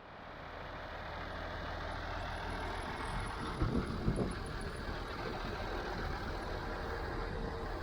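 Massey Ferguson 1105 diesel tractor engine running at a steady idle. A few short knocks come between three and a half and four seconds in.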